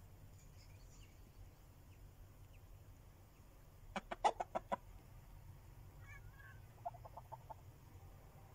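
A chicken clucking: a quick run of about seven clucks about four seconds in, then a fainter run of clucks some three seconds later.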